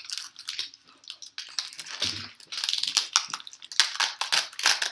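Plastic packaging wrap on kinetic foam containers crinkling and crackling as it is handled and picked at to get it open, in rapid irregular crackles that grow much busier about a second and a half in.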